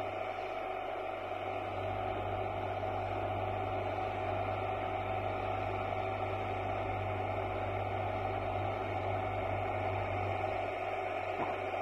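Tractor engine running at a steady speed: a continuous low hum without change.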